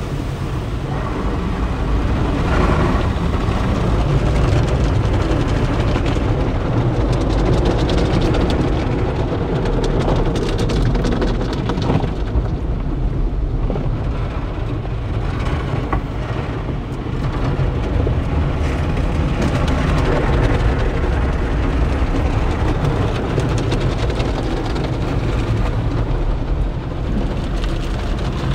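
Automatic tunnel car wash heard from inside the car's cabin: water spray and cloth wash strips beating and sweeping over the roof and windshield, a loud, steady wash of noise with a deep rumble beneath.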